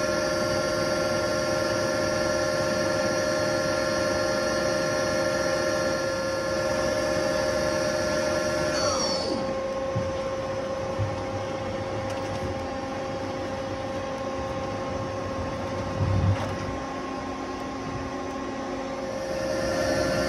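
1995 Mazak Quick Turn 18N CNC lathe spindle running at speed with a steady whine, then spinning down about halfway through to a lower steady machine hum. A brief knock comes a few seconds later, and the spindle spins back up near the end.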